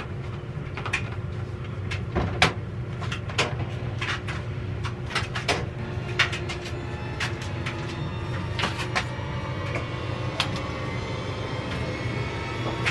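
A steady low machine hum with a faint even tone above it, overlaid by scattered sharp clicks and knocks at irregular intervals as things are handled and moved about.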